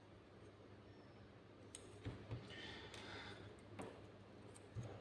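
Faint clicks of small plastic LEGO minifigure parts being handled and snapped together, a few scattered clicks in the second half.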